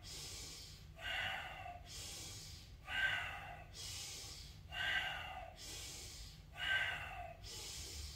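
A person's deep, rhythmic breathing for a qigong breathing exercise: a sharper, louder breath alternates with a softer airy one, about one full breath every two seconds, four times over.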